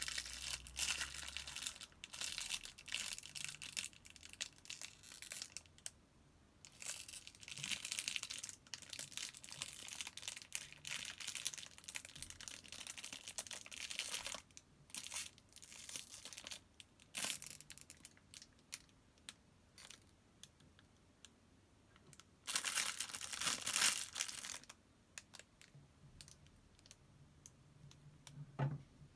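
Plastic wrapping crinkling and rustling in repeated bursts, with scattered light clicks between them; a louder burst of crinkling comes late on.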